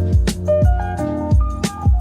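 Background music with a steady beat: a melody over a deep kick drum and percussion.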